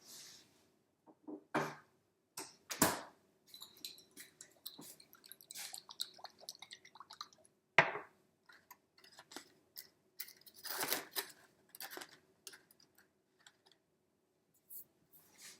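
Kitchen handling noises while tacos are assembled: irregular clicks, rustles and scrapes, with a few sharper knocks about 3, 8 and 11 seconds in.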